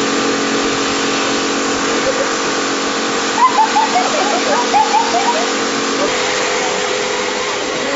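Pressure washer running, its water jet hissing steadily against a wall over the steady hum of its motor; part of the hum drops out about six seconds in.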